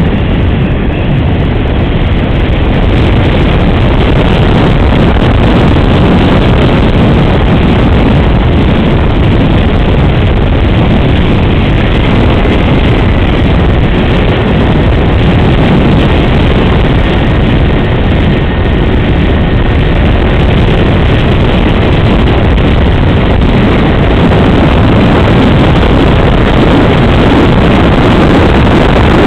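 70mm electric ducted fan (SAPAC MB-1) running steadily in flight, heard together with loud, steady wind noise on the microphone.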